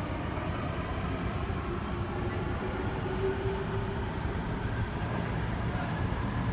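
MTR Kwun Tong Line C-Train moving along the underground platform, heard through the closed platform screen doors: a steady low rumble of wheels and running gear with faint humming tones.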